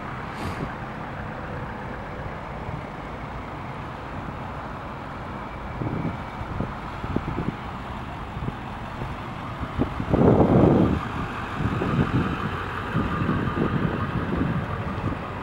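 Cars and SUVs driving past one after another, engines and tyres passing close by, with a louder rumble about ten seconds in.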